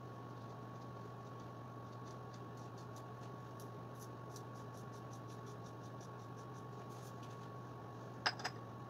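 Faint scattered clicks and ticks of scooter clutch parts being handled and fitted by hand, over a steady background hum. Two sharper clicks come close together near the end.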